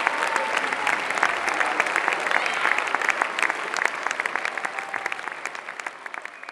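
Audience applauding: dense, even clapping from many hands, fading away near the end.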